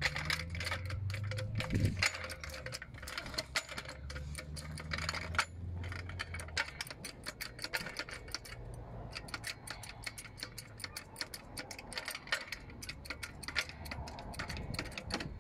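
Hydraulic trolley floor jack being worked under a car's side sill: rapid, irregular clicking and rattling of its metal parts, with a low hum beneath for the first half.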